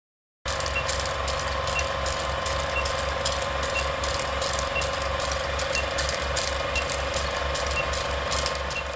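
Film-projector sound effect under a film-leader countdown: a steady, rapid mechanical clatter with a hum, and a short high beep once a second as each number counts down. It starts about half a second in.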